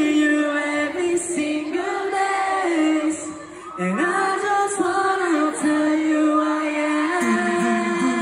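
A male voice singing live through a stage microphone, holding long notes that step up and down in pitch, with a brief break a little under halfway.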